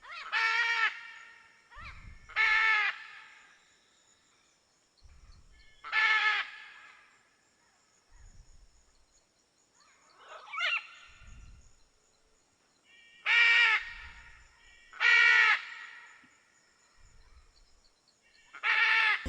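Red macaw giving loud, harsh squawks, about seven separate calls each lasting about half a second, spaced a few seconds apart.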